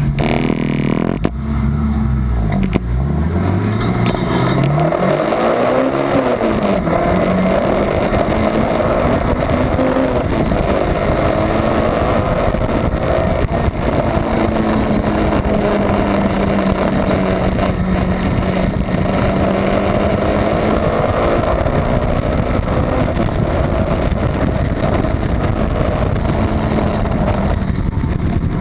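Honda Civic's B18 non-VTEC four-cylinder engine running hard on track. In the first few seconds its note drops and climbs steeply, then it holds high revs for a long stretch, the pitch slowly rising and falling, over steady wind and road noise.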